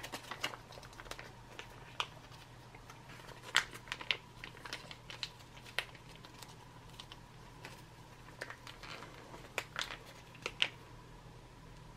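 Foil retort pouch crinkling and crackling in the hands as it is squeezed out, in scattered sharp crinkles with a few louder ones.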